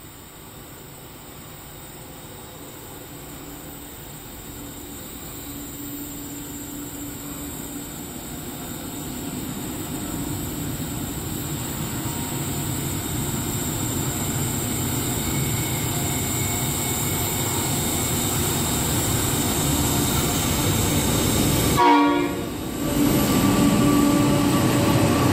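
Freight train led by an NR class diesel-electric locomotive approaching and growing steadily louder, with a sudden peak about 22 seconds in as the locomotive comes level and runs past.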